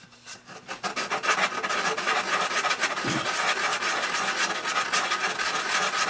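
Sandpaper rubbed by hand in quick back-and-forth strokes over a small wooden baseball bat, a steady scratchy rasping.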